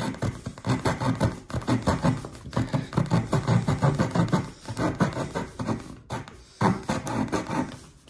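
Leatherman Surge's interchangeable saw blade sawing through a wooden tongue-and-groove board: rapid back-and-forth rasping strokes with a short pause about six seconds in, the blade cutting right through.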